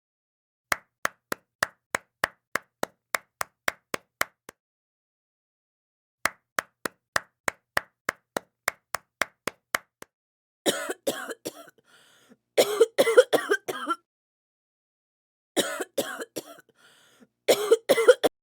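Sharp percussive taps, two runs of evenly spaced single strikes at about three a second. They are followed by two clusters of quicker, louder strikes about halfway through and near the end.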